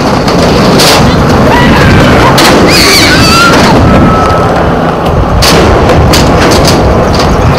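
Loud rumble of longboard wheels rolling over concrete, with wind buffeting the microphone and several sharp knocks as the wheels cross joints and rough patches.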